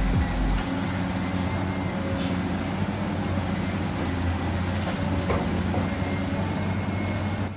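Radio-controlled model construction vehicle running: a steady motor and gearbox hum with a thin high whine. A deeper low rumble drops out under a second in.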